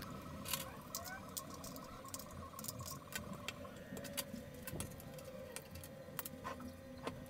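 Scattered light clicks and taps of small metal parts and a small tin being handled on a hard tabletop, including a screwdriver prying at the tin's lid, over a faint steady hum.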